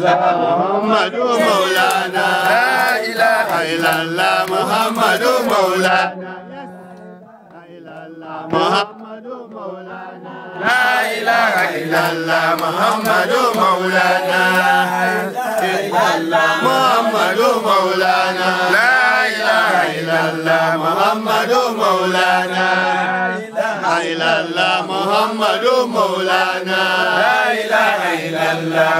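Sufi dhikr chanting: voices repeating an invocation in a rising and falling melody over a steady low tone. The chanting drops away for a few seconds about six seconds in, then comes back at full strength.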